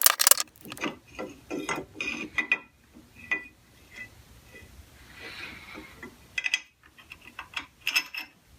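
Small steel lathe parts and hand tools clinking and clicking as they are handled, with a few short metallic rings; a quick run of sharp clicks at the start and another near the end.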